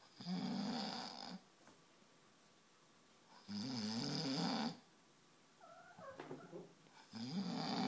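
A man snoring loudly, three long rattling snores about three and a half seconds apart, each lasting a little over a second.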